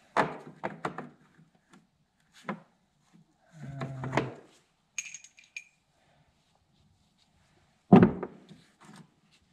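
Metal sockets clinking and knocking as a socket set is rummaged through in search of one that fits a differential plug. There are scattered clinks, a brief ringing clink about five seconds in and a loud knock about eight seconds in.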